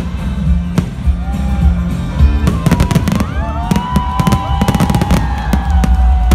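Fireworks bursting and crackling over loud music with a heavy bass. The cracks grow dense from about halfway in.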